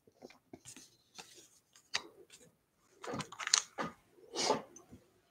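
Baseball trading cards being handled: soft card-stock slides and short clicks as cards are flipped through. Near the end there are two louder rustles as the hand moves to the cardboard box.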